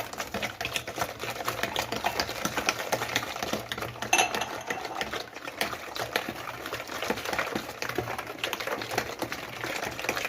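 A liquid cake batter of eggs, sugar, oil and milk is being beaten in a bowl, with rapid, continuous clicking strokes against the bowl. One stroke about four seconds in is louder.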